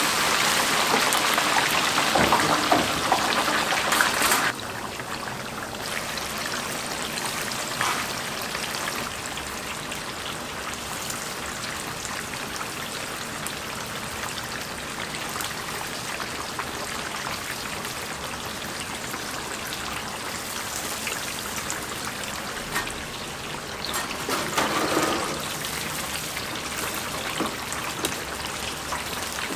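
Hot oil sizzling in a deep fryer, louder for the first four or so seconds and then settling to a steadier, quieter sizzle, with a brief swell near the end.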